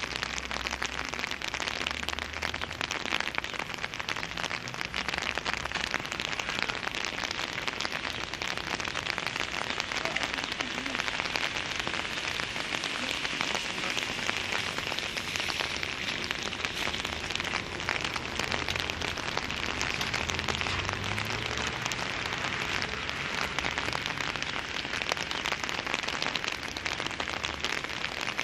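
Steady rain: a dense patter of drops falling close by, with a low hum from waiting vehicles near the start and again around twenty seconds in.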